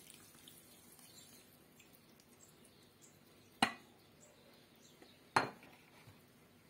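Two sharp clinks on a glass bowl, about two seconds apart, as hot clarified butter is poured and scraped out onto flour; between them only a faint background.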